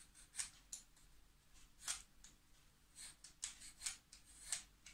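Vegetable peeler shaving slivers off a peeled ginger root: a series of faint, short, high-pitched scrapes at an uneven pace, about two a second.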